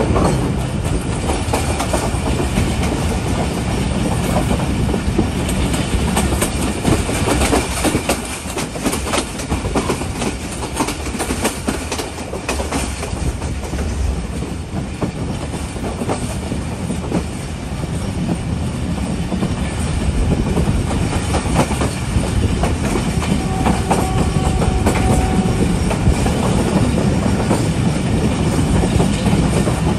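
Moving passenger train heard from on board: a steady running rumble with the wheels clattering over rail joints.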